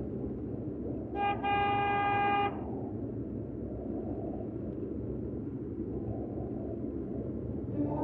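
Vehicle horn about a second in: a brief beep and then a longer honk of about a second. Under it, the steady road and engine noise of a car driving, heard from inside the cabin.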